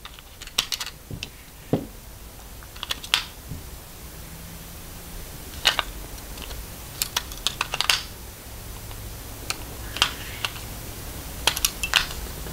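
AA batteries being slid and pressed into the plastic battery holder of a Canon Auto Winder A: an irregular series of sharp clicks and light knocks as the metal-cased cells meet the holder and its contacts.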